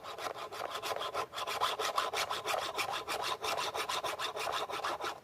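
Round chainsaw file scraping across the cutting teeth of a saw chain in quick, regular strokes, sharpening the chain; the filing stops abruptly at the end.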